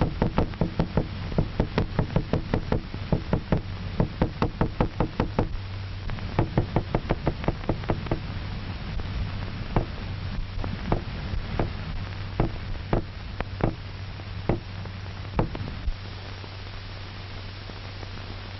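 Small hammer rapped on a table as a sound stimulus: quick knocks about four a second at first, then slower, spaced strikes that stop about three quarters of the way through. A steady low hum from the old film soundtrack runs underneath.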